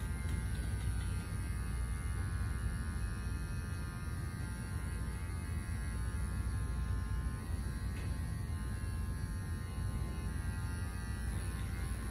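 Electric dog-grooming clipper running with a steady buzzing hum, cutting off at the very end.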